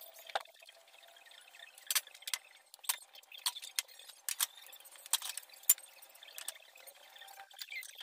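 Light, sharp clinks and knocks, about a dozen spread irregularly, as ornaments and a tray are handled and set down on a glass-topped coffee table.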